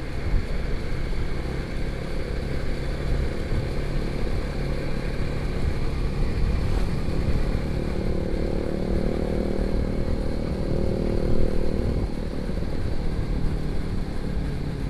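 Motorcycle engine running while riding, under steady rushing wind and road noise. A steady engine note comes through more clearly from about eight to twelve seconds in.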